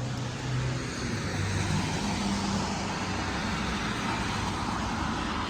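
Steady street traffic noise: cars going by with a continuous even rush and a faint low engine hum.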